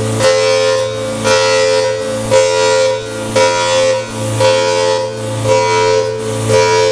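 Federal Signal Thunderbolt 1003 outdoor warning siren sounding a steady tone. The pitch holds level while the sound swells about once a second as the rotating horn sweeps past.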